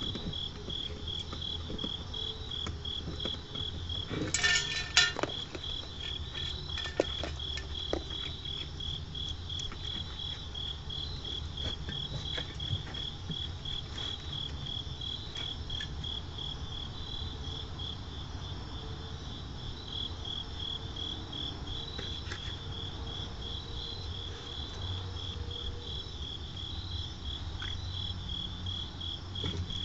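A cricket chirping steadily at night, about three high chirps a second. A brief clatter of sharp clicks comes about four seconds in, followed by a few faint clicks.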